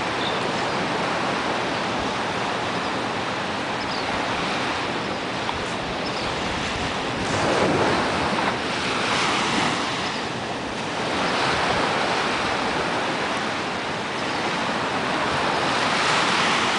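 Ocean surf washing onto a beach: a continuous rush of noise that swells several times as waves come in, with some wind on the microphone.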